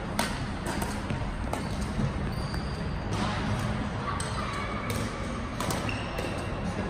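Badminton play: sharp clicks of rackets striking the shuttlecock, several in the first two seconds and a couple more later, mixed with short squeaks of shoes on the court floor.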